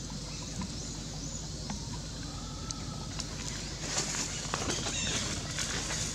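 Dry leaf litter rustling and crackling as a baby macaque moves about in it, getting busier about four seconds in, over a steady low outdoor hum. A few faint high chirps about a second in.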